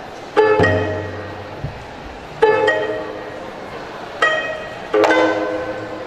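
Gayageum, the Korean plucked zither, playing sparse notes, some in quick pairs, each one ringing out and fading before the next.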